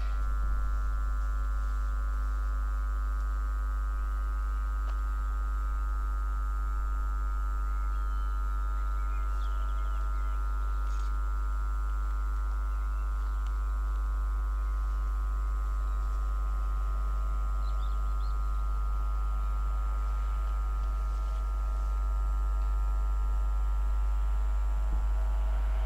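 Rails singing ahead of an approaching Class 66 diesel freight train: a steady, high, multi-pitched ringing over a low rumble. It grows louder near the end as the train draws closer.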